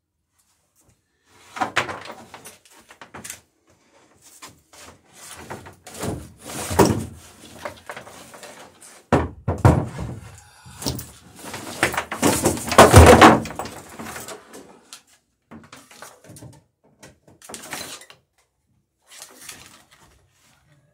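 Irregular knocking and clattering of hand work, with heavier thuds about nine and thirteen seconds in.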